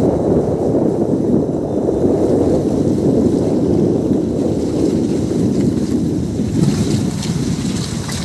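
Wind rushing over the microphone of a phone carried on a moving motorcycle, a steady low rush that eases slightly near the end.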